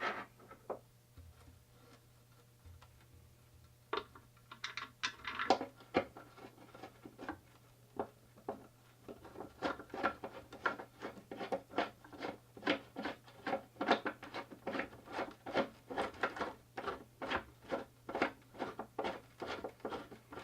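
Hand work on hardware: scattered clicks and scrapes, settling from about nine seconds in into a steady run of about two to three clicks a second, over a steady low hum.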